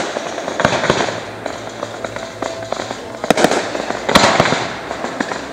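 Fireworks display: several sharp bangs of shells bursting, the loudest a little past three and about four seconds in, with continuous crackling between them.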